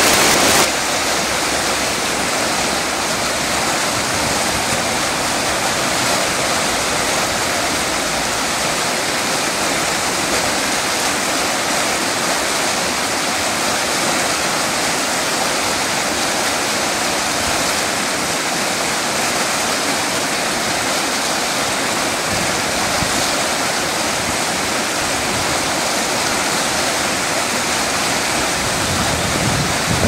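Fast stream rushing over rocks in a whitewater rapid: a steady, loud rush of water.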